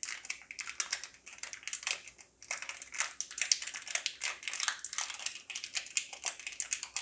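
Thin plastic packaging crinkling and crackling in a dense, irregular run as a phone's USB cable is pulled out of its bag.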